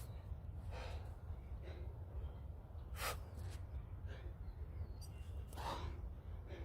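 A man's heavy, forceful breathing from the exertion of explosive push-ups: a series of sharp exhales about a second or so apart.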